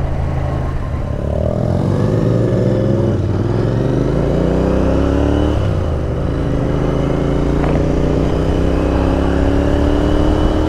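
Royal Enfield Interceptor 650's parallel-twin engine pulling up through the gears under acceleration. The revs rise, drop back at upshifts about three and five and a half seconds in, then climb slowly, over a steady rush of wind and road noise.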